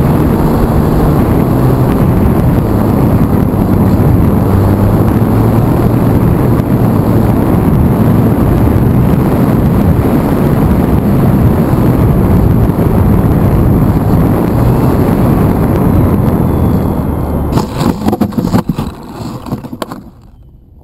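Onboard sound of a HobbyZone Super Cub RC plane's electric motor and propeller running steadily, mixed with wind rushing past the camera. Near the end come a few sharp knocks and scrapes as the plane touches down in the snow, then the motor cuts off.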